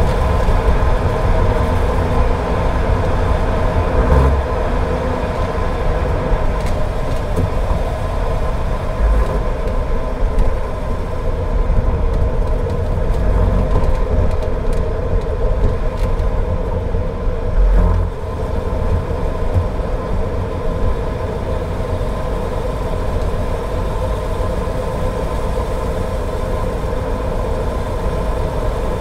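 Car driving on a wet road: a steady low rumble of engine and tyres with a constant drone. There is a short thump about four seconds in and another at about eighteen seconds, like the car going over bumps.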